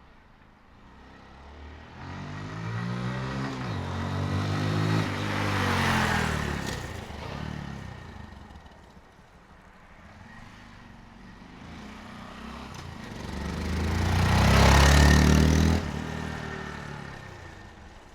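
Honda Monkey 125's single-cylinder engine riding past twice. Each time the exhaust note grows louder, peaks and fades, the second pass louder than the first, with the pitch rising and falling as the rider works the throttle.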